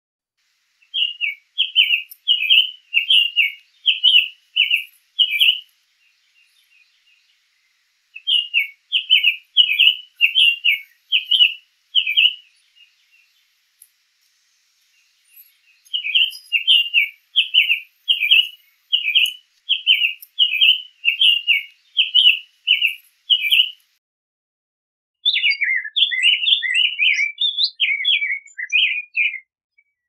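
Summer tanager singing: three runs of quick, clear slurred notes a few seconds apart, then a faster, more jumbled phrase near the end.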